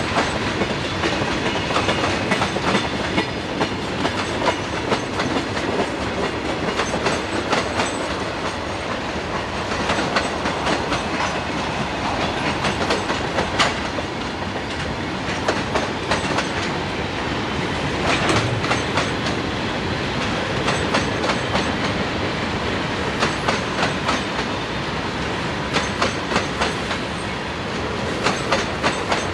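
Freight train cars rolling past at close range: a steady rolling rumble of steel wheels on rail, with sharp clacks in quick clusters as the wheel sets cross rail joints.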